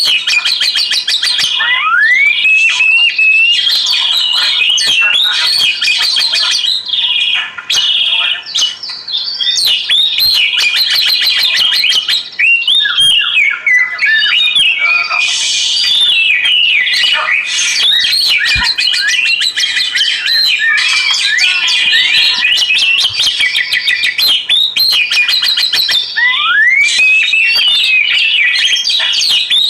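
Oriental magpie-robin (kacer) singing continuously: a loud, varied song of rising whistles, rapid repeated chirps and trills, with a rising whistled sweep near the start and again near the end.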